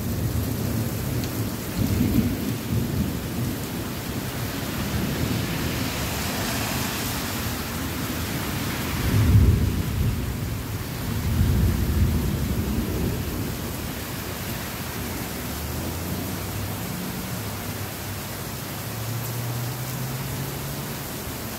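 Thunderstorm: a heavy downpour of rain pouring steadily, with thunder rumbling low several times. The loudest roll comes about nine seconds in and another follows soon after.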